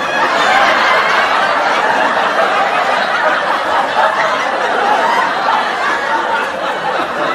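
People laughing and snickering over a continuous jumble of talk.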